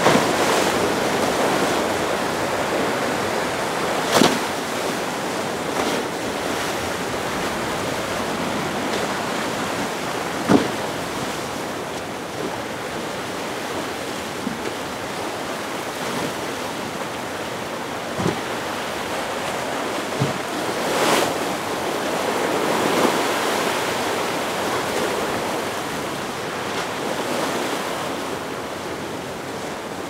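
Rough, wind-driven surf and chop washing and breaking, with wind gusting on the microphone and a few sharp knocks.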